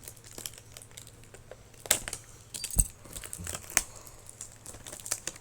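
Toy packaging being pulled open by hand: plastic and cardboard crinkling and rustling, with a few sharp clicks and snaps about two, three and four seconds in.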